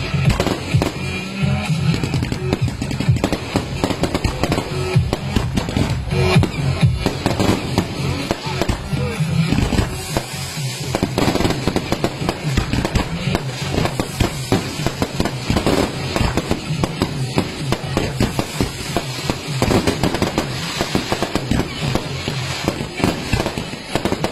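Fireworks going off without a break, a dense run of many bangs and crackles a second, with music playing.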